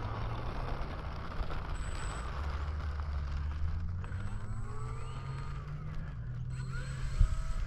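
Electric motor and propeller of a radio-controlled Mustang model at low taxi throttle: a low hum that steps up and down in pitch, with a faint high whine that comes and goes.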